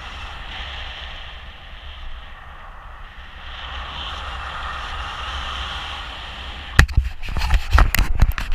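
Steady wind rushing over an action camera's microphone in paraglider flight. About seven seconds in, a burst of loud knocks and scrapes as the camera is handled and its lens covered.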